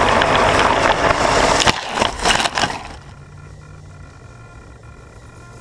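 Axial Wraith RC truck with a Novak brushless motor driving hard over rough dirt: loud rumble and scraping from tyres and chassis, with several knocks as it bounces. It stops about three seconds in, leaving a faint steady hum with a thin whine.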